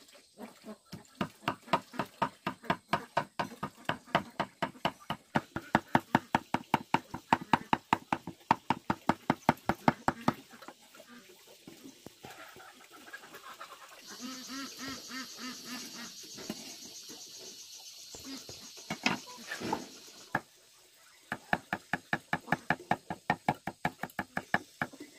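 A knife chopping on a cutting board in quick, even strokes, about four a second, stopping about ten seconds in and starting again near the end. Between them comes a few seconds of steady hiss.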